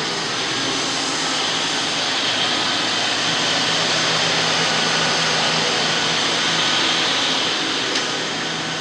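Steady rushing hum of a parked, running Ford Crown Victoria P71 police car, its ventilation fan blowing over the idling V8 engine, swelling a little in the middle and easing near the end.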